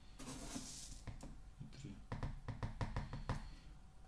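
Small lead snipe shot being poured from a measuring spoon into a 16-gauge brass shotshell. A short rushing rattle comes first, then a run of quick clicks, several a second, in the middle.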